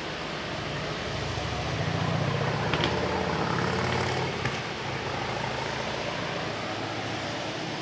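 A motor vehicle's engine hum that swells and then fades over a few seconds, over a steady background hiss.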